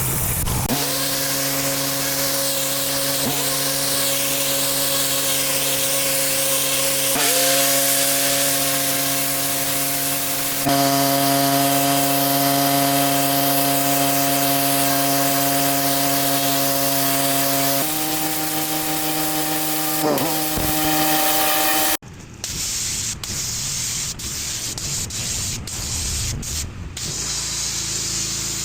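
Pressure washer spraying water onto patio slabs: a steady hiss of the jet over the engine-driven pump's steady hum, which shifts pitch a few times and dips briefly, as on a trigger release. About three-quarters through, the sound changes abruptly to a more broken, choppy spray.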